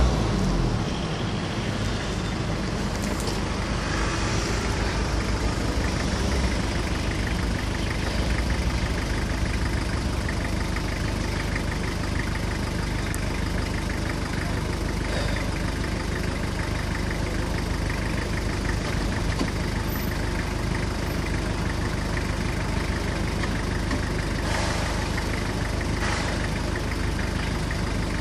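A motor vehicle's engine idling steadily close by, with street traffic behind it. A louder low rumble dies away about a second in.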